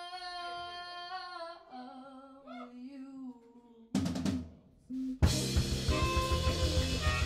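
Live rock band: a woman's long sung note wavers and fades, then after a quiet stretch the band strikes two loud hits and comes back in loud about five seconds in, drum kit to the fore.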